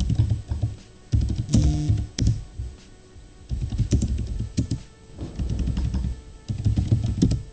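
Typing on a computer keyboard: short runs of keystroke clicks with pauses between them.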